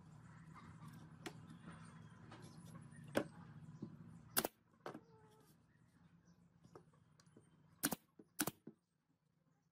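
Brad nailer firing into a pine frame: about four sharp shots, two near the middle and two close together near the end, with a few lighter clicks. A low steady hum cuts off about halfway through.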